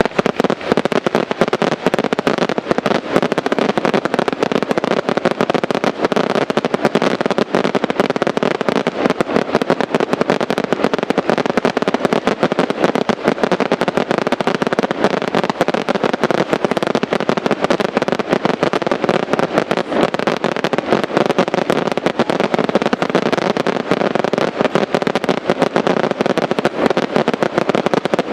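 Professional fireworks display firing a dense, unbroken barrage: rapid bangs and crackling with no pause.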